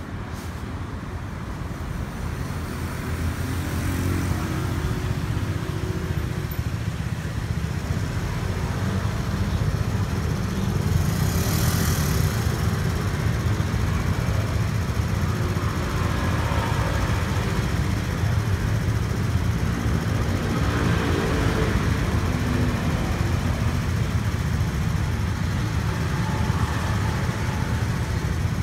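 Street traffic: vehicle engines running by in a steady low rumble that builds over the first ten seconds, with a brief hiss about twelve seconds in.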